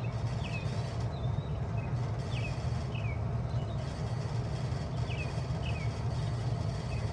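A 2000 Bard 3-ton wall-hung heat pump running steadily in cooling mode, a low even hum. A bird chirps over it repeatedly in short falling notes.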